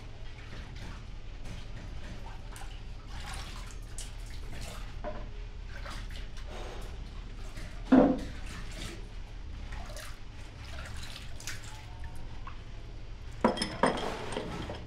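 Workshop clatter from handmade padlock production: scattered light clicks and taps of small metal parts over a steady low machine hum, with one louder knock about eight seconds in and a quick run of sharp clicks near the end.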